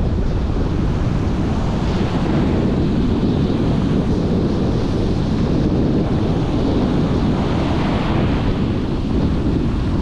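Ocean surf breaking and washing up the beach, swelling about two seconds in and again around eight seconds, with wind buffeting the microphone.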